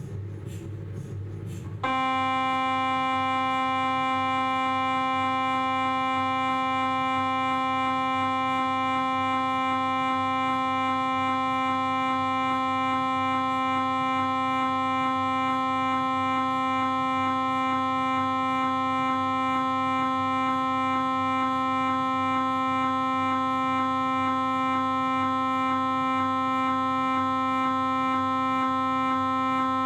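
Philips 1.5 T MRI scanner's gradient coils starting a scan about two seconds in, after a quieter low hum: a loud, steady, pitched buzz that holds without change. This is the half-minute Shim/Smart Knee planning scan of a knee examination.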